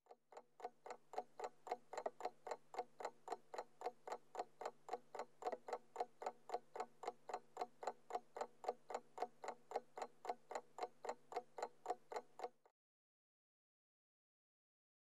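Rapid, even ticking, about four to five ticks a second, with a faint low hum beneath; it cuts off suddenly near the end.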